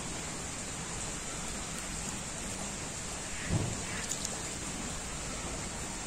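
Wind blowing through trees with leaves rustling, a steady even hiss. A brief low thump comes about three and a half seconds in, followed by a couple of faint ticks.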